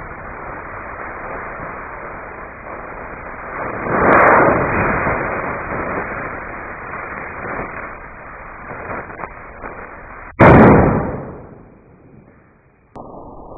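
A flash-powder salute firecracker goes off with one very loud bang about ten seconds in, dying away over a second or so. Before it there is steady dull noise, with a louder swell of noise about four seconds in.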